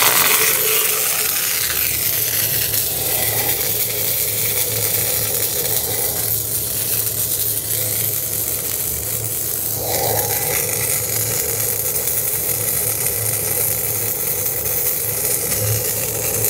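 MIG welding arc striking at once and then sizzling steadily as the gun lays a continuous bead in a duty-cycle heat test of the MIG gun.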